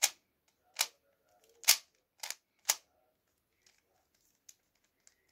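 Plastic 3x3 Rubik's cube being turned quickly by hand: sharp clacks as the layers snap round, five in the first three seconds, then a few faint ticks.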